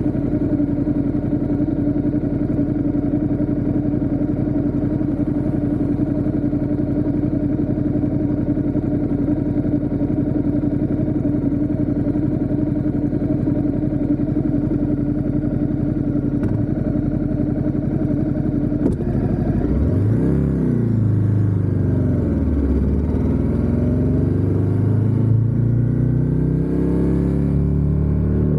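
Ducati Diavel 1260 S's Testastretta L-twin engine holding a steady note. About two-thirds of the way in, the note changes: the bike accelerates, its pitch climbing and dropping back several times as it shifts up through the gears.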